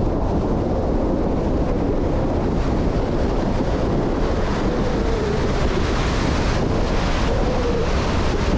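Ocean surf breaking and washing up the beach, with wind rumbling on the microphone.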